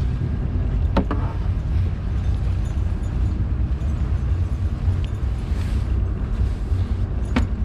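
Steady low rumble of a RIB boat running fast, its engine and the wind buffeting the action camera's microphone, with two sharp knocks, about a second in and again near the end.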